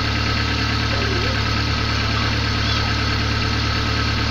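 Car engine idling steadily, heard close up in the open engine bay. This is the engine sent in with a complaint of an annoying noise and unstable running.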